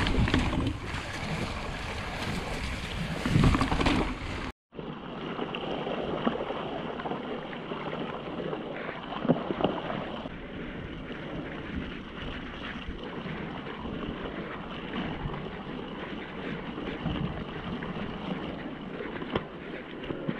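Wind buffeting the microphone of a mountain bike's camera while riding, with tyre rush on wet ground. About four and a half seconds in it cuts off abruptly, and a quieter, steady rush follows with a few short knocks.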